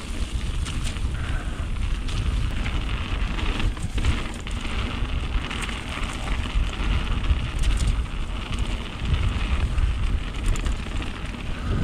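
Mountain bike riding a wet trail, heard on the rider's camera: wind buffets the microphone in a steady low rumble over a constant crackle of many small clicks from the tyres on wet ground and the bike rattling.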